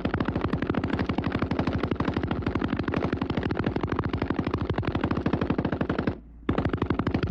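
Browning water-cooled machine gun firing a long sustained burst, shots coming in a rapid, even string. The fire breaks off for a moment about six seconds in, then resumes.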